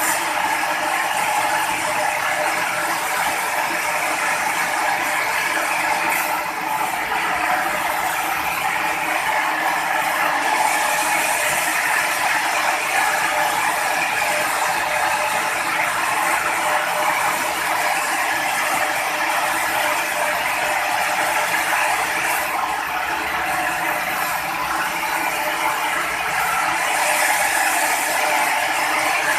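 Sawmill machinery running steadily, a continuous dense mechanical noise without pause.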